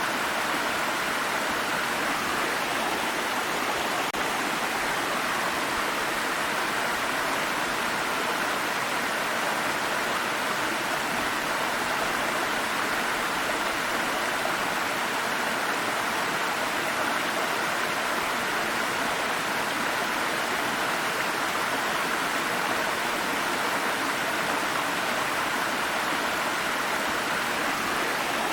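Stream water running and splashing over rocks: a steady, even rush with no breaks.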